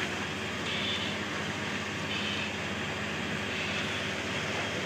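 Steady engine drone of a fire engine running its pump to feed the hose line, with a higher hiss that comes and goes a few times.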